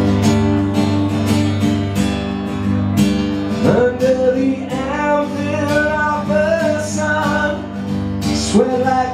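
Live song intro on strummed acoustic guitar, a steady rhythm of repeated chord strokes, with a wavering melody line joining over it about four seconds in.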